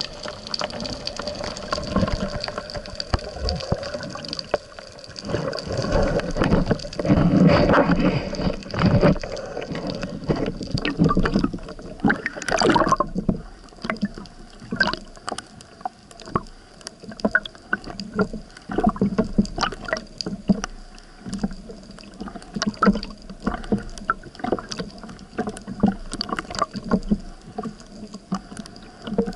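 Water heard through the housing of a speargun-mounted underwater camera: a dense rush of moving water for about the first twelve seconds as the freediver swims up, then choppy splashing and sloshing at the surface with many sharp little knocks. A faint steady high whine runs underneath.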